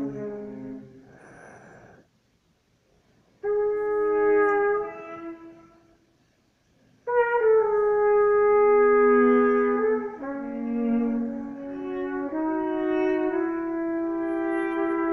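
Trumpet playing long, held notes in free improvisation. There is a breathy, toneless blow about a second in, then two short gaps of near silence. From about seven seconds in, the trumpet holds notes over a lower bowed viola line.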